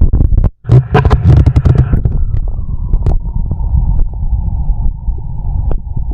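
Human stomach growling: a low rumble with a bubbly gurgle lasting about a second, just after a brief dropout near the start, then settling into a steady low rumble with scattered small clicks.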